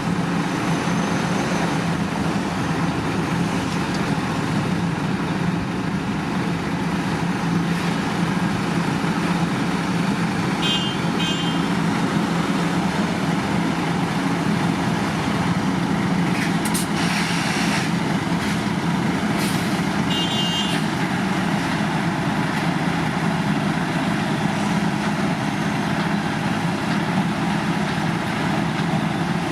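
Heavy road-construction machinery engines running steadily at a work site. Twice there is a quick run of high beeps, and a short hiss comes near the middle.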